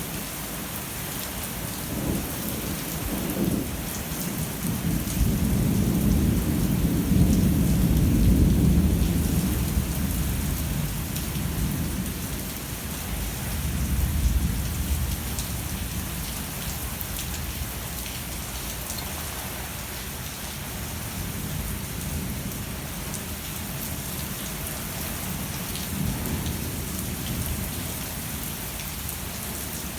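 Heavy rain pouring steadily in a thunderstorm, with drops pattering on hard surfaces. Thunder rumbles long and low, loudest several seconds in, again about halfway through and faintly near the end.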